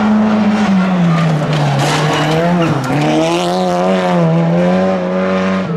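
Audi touring race car's engine coming off the throttle and braking into a hairpin, its note falling, dipping lowest just before three seconds in, then rising again as the car accelerates out and climbs away.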